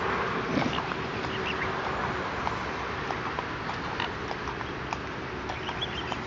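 A group of mute swans and cygnets feeding from a hand at close range: short calls and many small clicks of bills taking food, over a steady background noise.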